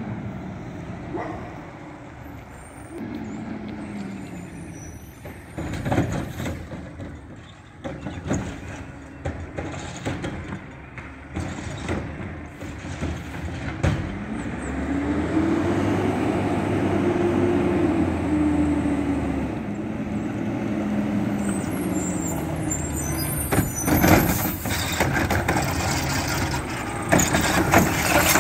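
Mack LEU front-load garbage truck's diesel engine running as the truck drives and pulls up, its pitch rising and falling as it speeds up and slows. Sharp air brake hisses come near the end as it stops.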